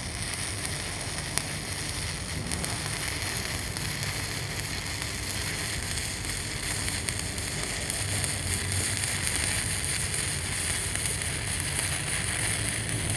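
Stick-welding arc of a 309 stainless-to-carbon electrode running steadily on the hot pass, held tight and short; it grows a little louder in the second half.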